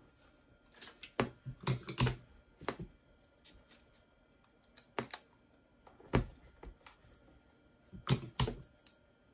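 Irregular sharp taps, clicks and paper rustles from hands smoothing a sublimation paper print onto a fabric stole and taping it down on a tabletop. Just after eight seconds in comes a louder pair of clacks as heat tape is pulled from a desk tape dispenser.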